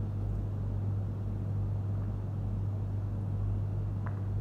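A steady low hum with a rumble beneath it, even in level throughout.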